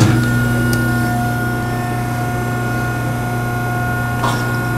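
The hydraulic power unit of a Scotchman 50-ton ironworker switches on and runs. Its electric motor and pump start abruptly and settle into a steady hum with a few fixed tones, and a faint click comes near the end.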